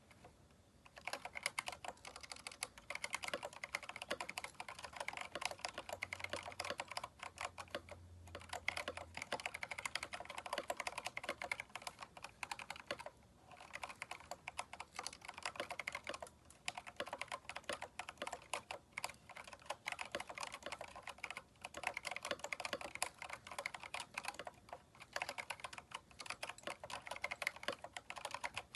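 Fast, continuous typing on a Keychron K4 mechanical keyboard fitted with replacement keycaps. Dense runs of key clicks start about a second in and are broken by short pauses every few seconds.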